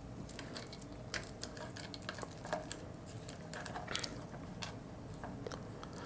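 Faint, scattered clicks and taps of small plastic parts as a 4-inch action figure is handled, its pegged-on pieces pulled off and the figure set back on its feet.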